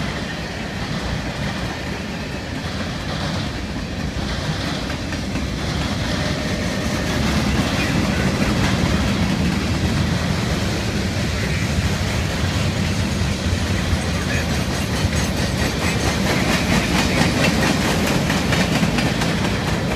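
CSX freight train's covered hoppers and centerbeam flatcars rolling past close by: a steady rumble of steel wheels with a continuous clickety-clack over the rail joints. It grows somewhat louder about seven seconds in.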